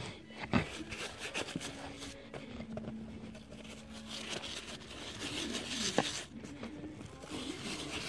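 Stiff-bristled hand scrub brush scrubbing the knobby rubber tread of wet RC truck tires in quick, uneven strokes. Two sharp knocks come through, one just after the start and one about six seconds in.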